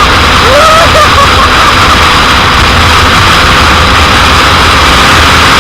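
Loud, steady wind rush over the microphone of a 2001 Suzuki GSX-R750 at speed, with the bike's inline-four engine running underneath it.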